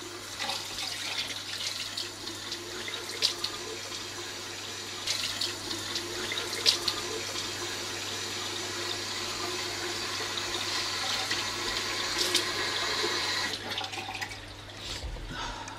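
Water running from a tap into a sink, with a few sharper splashes; the flow stops near the end.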